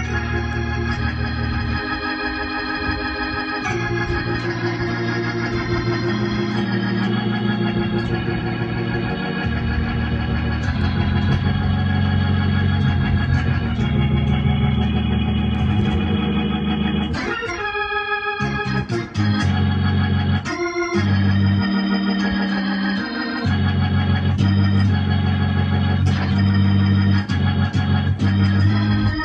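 Electronic keyboard played live with an organ-like sound: sustained gospel-style chords over a moving bass line, with two short breaks a little past halfway.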